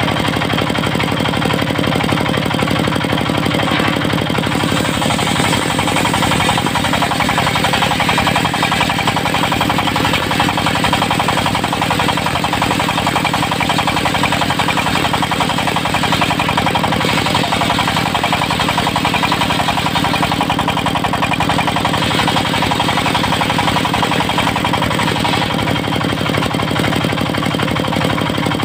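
Diesel engine of a portable circular-saw mill running steadily at a constant speed with a fast, even firing beat.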